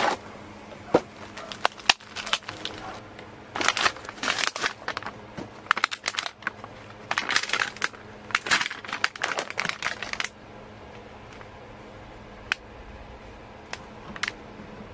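Plastic food packaging crinkling and crackling as it is peeled open and handled, in irregular bursts for roughly the first ten seconds, then only a few light clicks.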